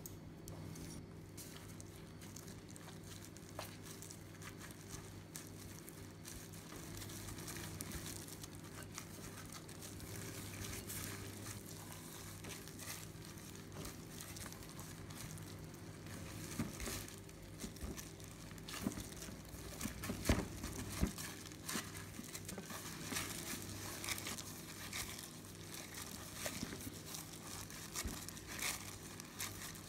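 Clear plastic food-prep gloves crinkling and rustling as hands knead and press glutinous rice dough in a glass bowl, with irregular soft clicks and knocks that get busier in the second half. A steady low hum runs underneath.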